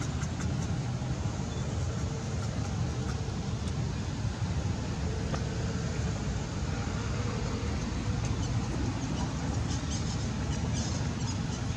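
Steady low outdoor rumble with no distinct pitched sound, and a few faint high clicks near the end.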